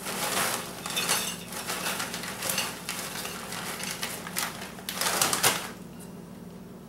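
Fritos corn chip bag crinkling and rustling as a hand reaches in for a few chips, with a louder crackle about five seconds in as the bag is put down.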